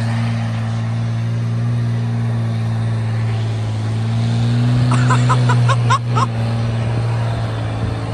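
Straight-piped 12-valve Cummins inline-six diesel in a school bus running under load as the bus drives, a steady deep drone that rises slightly in pitch about halfway through. A quick series of short high sounds comes in over it about five seconds in.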